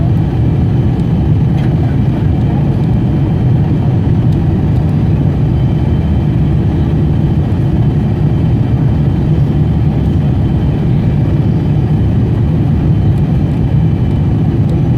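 Steady low rumble inside the cabin of a Boeing 747-400 airliner: engine and airflow noise, with faint steady high tones above it and no change in level.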